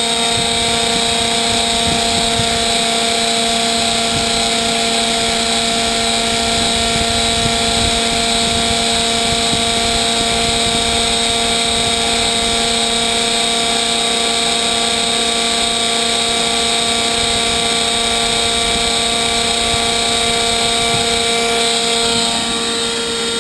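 Homemade turbocharger-based gas turbine running steadily at speed: a rushing noise with a steady whine of several pitches, easing slightly in level near the end.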